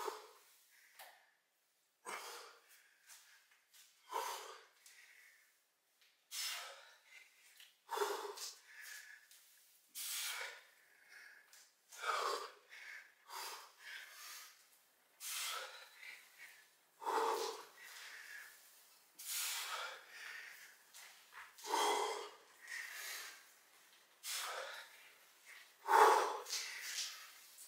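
A man breathing hard under the strain of a kettlebell complex, with short, forceful breaths through the nose and mouth roughly once a second.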